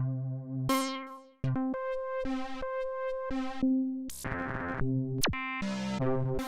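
Maschine Poly Synth, a Pro-53 style analogue-modelled synthesizer, sounding the same held note over and over while its presets are stepped through. Each sound starts and stops abruptly, and the tone changes every second or so, with a brief gap about a second and a half in.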